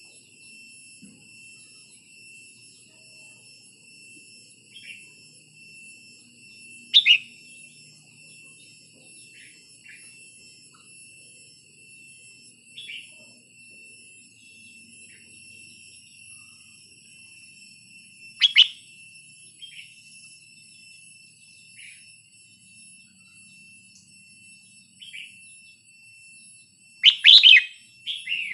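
Red-whiskered bulbul giving short, sharp calls every few seconds, loudest about seven and eighteen seconds in and in a quick run of notes near the end, over a steady high-pitched ringing drone.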